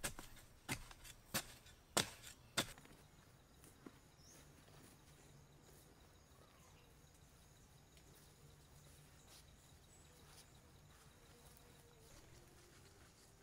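A short-handled hoe chopping into packed soil: five sharp strikes in the first three seconds, about one every two-thirds of a second, and a lighter one shortly after. Then only a faint outdoor background.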